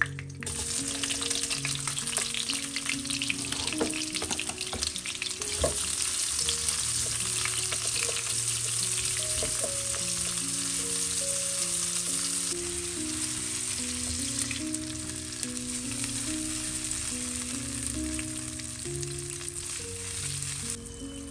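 Cut onion sizzling in hot oil in a non-stick wok, starting as it goes into the pan and frying steadily while it is stirred with a silicone spatula, with a few light taps from the spatula.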